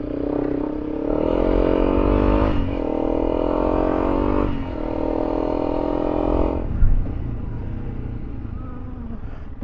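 Honda CRF300L Rally's single-cylinder engine pulling hard under acceleration, with two short breaks as it is shifted up through the gears. About seven seconds in the throttle closes and the engine falls back to a low run, with a short knock and a steady low wind rumble.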